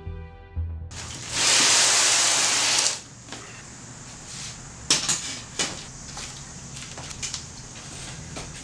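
Background music ending about a second in, then a loud hiss for about a second and a half. After that, a few sharp slaps and knocks over quiet room tone: flip-flop footsteps on a concrete garage floor and a chair creaking as a man sits down.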